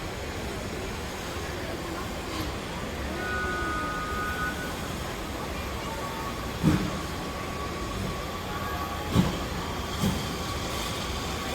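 Heritage railway train moving slowly forward over the points onto the line, a steady rumble with a few sharp knocks from the wheels about two-thirds of the way through.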